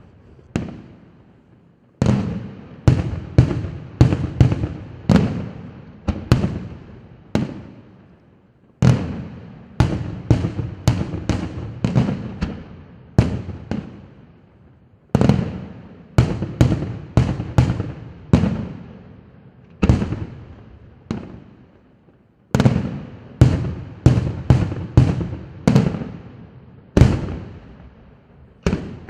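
Aerial firework shells bursting in rapid volleys, sharp bangs each followed by a fading echo, in four quick clusters with brief lulls between.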